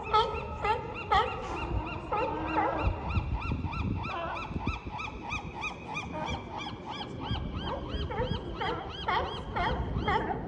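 A chorus of California sea lions barking: many overlapping, repeated honking barks, several a second.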